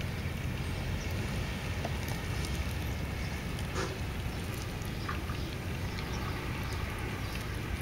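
Two kittens eating wet cat food from a plastic tray, with faint small wet clicks of chewing and lapping, over a steady low rumble.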